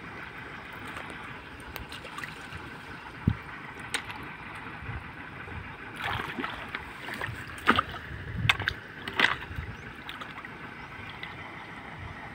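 Water sloshing and splashing as people wade and feel about by hand in a shallow pond, over a steady outdoor hiss, with a cluster of sharper splashes or knocks about six to nine seconds in.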